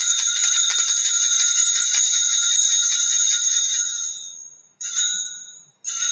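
Altar bells shaken in a long rapid peal that rings out the elevation of the host at the consecration, fading away after about four seconds, followed by two short shakes near the end.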